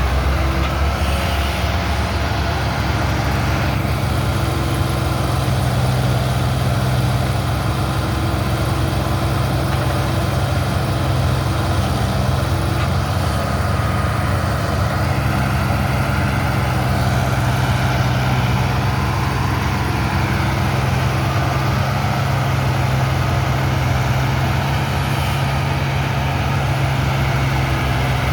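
Tractor diesel engine powering a Bull Machines backhoe loader attachment, running steadily at an even speed.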